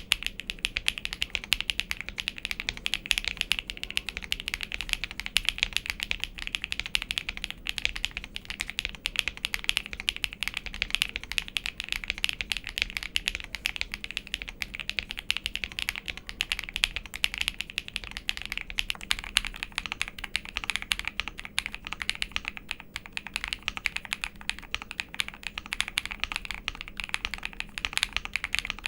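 Monsgeek M1 V5 mechanical keyboard with Akko X HMX switches being typed on continuously and fast, a steady stream of many keystrokes a second.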